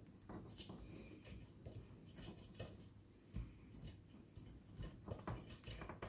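Faint, irregular small rustles and clicks of fingers wrapping and pressing self-amalgamating tape around a cable joint.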